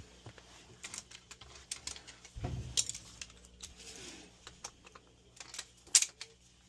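Scattered clicks, taps and light rattles of hands and tools working on a dryer's parts, with a dull knock about two and a half seconds in and a sharp click near the end.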